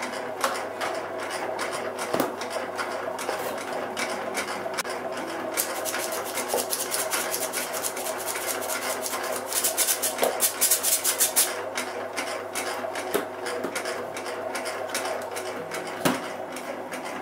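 Bread machine running, its motor humming while the kneading paddle works the dough with a rapid, continuous clicking rattle that grows louder about ten seconds in.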